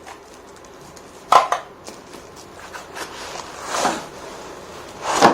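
Handling noises from unpacking a humidifier and its parts: a sharp knock about a second in, a longer swelling noise near four seconds, and another knock near the end.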